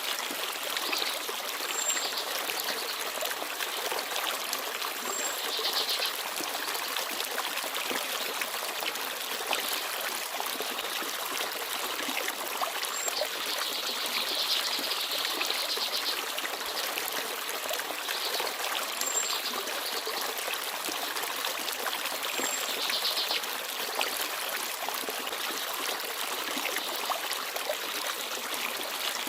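Small forest stream babbling and trickling steadily over stones, with a few brief, very high chirps from small birds now and then.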